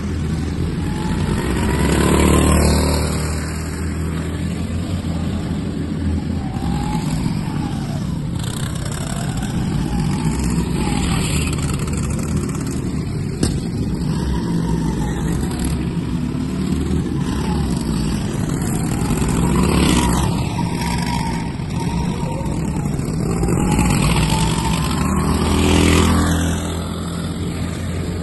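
Go-karts running laps. Their motors rise and fall in pitch over and over as they speed up and slow down around the corners, and the sound swells several times as a kart passes close by.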